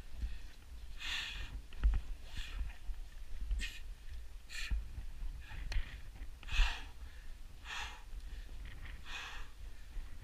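A climber breathing hard while scrambling across rock, about seven hissing breaths, one every second or so, with a steady low wind rumble on the microphone and a few light knocks.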